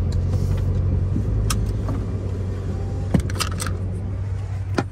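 Dodge Charger R/T's 5.7-litre Hemi V8 running at idle, heard from inside the cabin as a steady low hum. A few short sharp clicks and rattles come over it, in a cluster about three seconds in and once more near the end.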